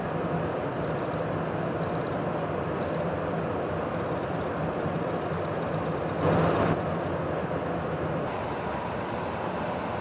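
Steady roar of jet aircraft engine noise on a flight line, with a brief louder surge about six seconds in.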